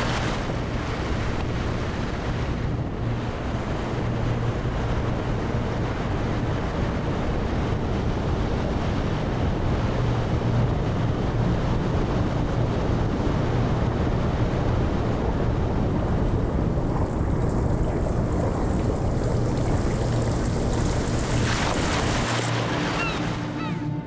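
Sea surf breaking and washing up the shore in a steady rush of water and foam, with wind rumbling on the microphone.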